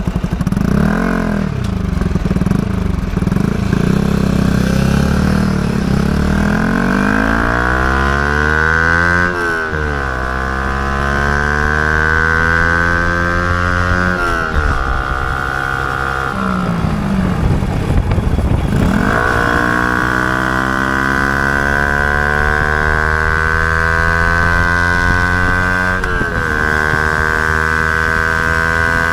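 Yamaha YZF-R125's single-cylinder engine running through a Mivv GP Pro exhaust with the dB killer fitted. The revs climb, drop sharply about nine seconds in, and are held high for long stretches, with further drops about halfway through and near the end.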